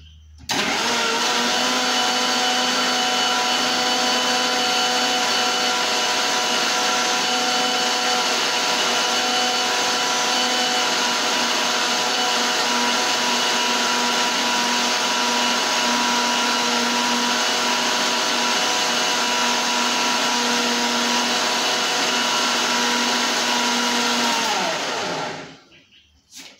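Electric mixer-grinder blender switched on about half a second in and running at a steady speed, whipping semi-frozen milk and coffee into a thick cold coffee. It is switched off near the end and spins down with a falling whine.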